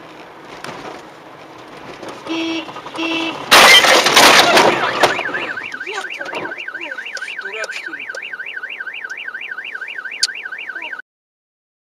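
Two short car-horn beeps, then a loud collision crash about three and a half seconds in. A car alarm then warbles up and down at about three to four sweeps a second until the sound cuts off suddenly near the end.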